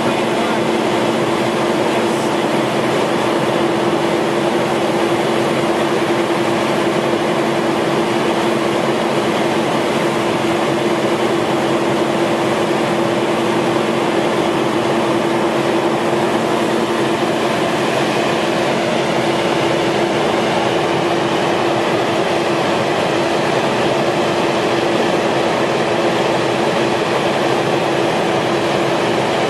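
Sandvik Tamrock Titon 600 DTH drill rig running steadily under power during a function test: a loud, even machine noise with one constant droning tone in it and no hammer blows.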